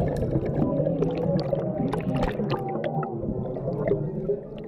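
Muffled underwater rumble with bubbling and gurgling, heard as if from below the surface, with scattered small clicks of bubbles.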